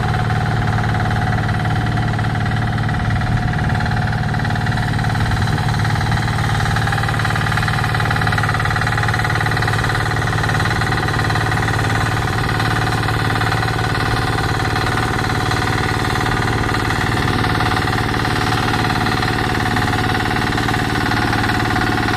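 Road roller engine running steadily, its speed unchanging.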